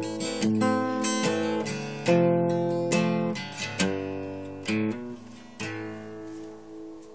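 Acoustic guitar strumming the closing chords of a song, the strokes spacing out, with a last chord about five and a half seconds in left to ring and fade away.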